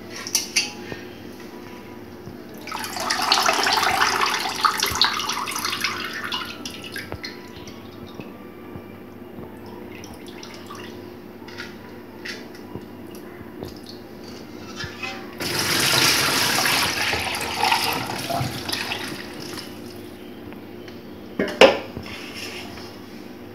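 Water splashing and dripping in a steel bowl as handfuls of soaked ragi vermicelli are lifted out and squeezed to drain them, in two spells of a few seconds each. There are small clicks between them and a sharp knock near the end.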